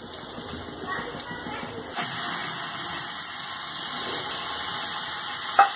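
Ground onion-tomato paste poured into hot oil in an aluminium kadhai, sizzling: a quieter sizzle of the tempering oil, then a sudden jump to a steady loud hiss about two seconds in as the paste hits the oil. A short tap sounds near the end.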